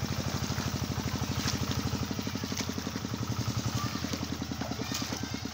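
A small engine running steadily at idle, with a fast, even chugging beat.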